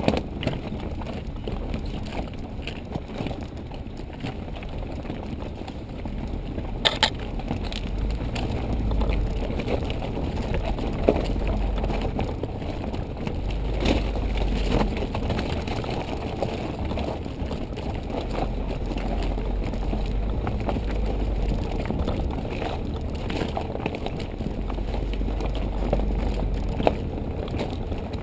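Onboard sound of a vehicle moving over a rough gravel track: a low rumble that swells and fades, with scattered rattling clicks and knocks from the bumps, including a sharper knock about seven seconds in.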